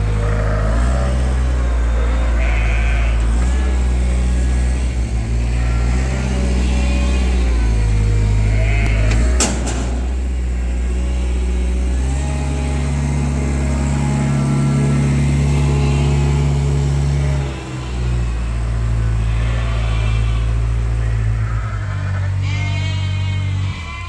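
Sheep bleating now and then over a loud, steady low hum that jumps to a new pitch every few seconds, with one sharp click about halfway through.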